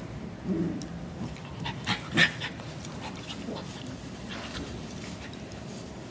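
Two cairn terriers play-fighting, a young puppy and an adult: panting and small whimpering noises, with one short, loud yip a little over two seconds in.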